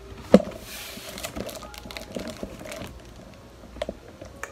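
Large cardboard box being handled: one sharp knock about a third of a second in, then cardboard rustling and scraping with scattered light knocks.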